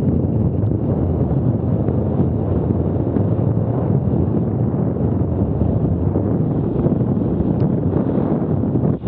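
Wind buffeting an action camera's microphone on a mountain bike descending a dirt forest trail at about 26 km/h, mixed with steady rumble from the tyres and bike over the rough ground.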